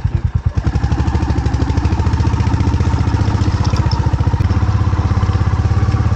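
Royal Enfield Hunter 350's single-cylinder engine running with a steady, even thumping beat.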